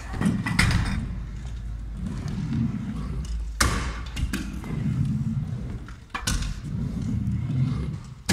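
Stunt scooter wheels rolling over plywood skatepark ramps, a low rumble broken by a sharp thump every few seconds as the scooter hits the ramps.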